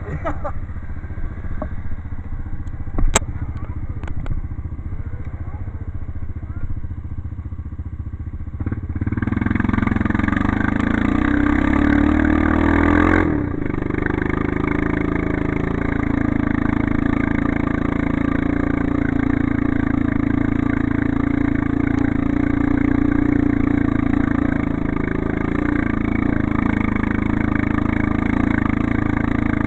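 ATV engine running at low revs with a few sharp clicks, then growing louder and fuller at about nine seconds as the quad gets under way. It dips briefly a few seconds later, then runs steadily.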